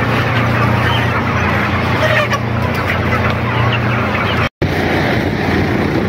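A large flock of broiler chickens clucking and peeping together over a steady low hum from the shed. About four and a half seconds in the sound cuts off, and wind noise on the microphone follows.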